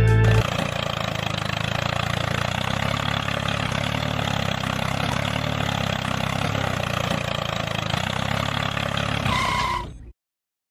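Small motor of a DIY miniature tractor drilling rig running steadily, a constant hum with a dense whirring hiss, then stopping abruptly near the end.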